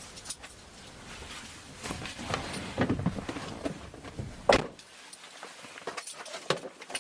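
Household sounds of someone leaving home: rustling and handling noises build up, then a door shuts with a sharp knock about four and a half seconds in, followed by a few light clicks.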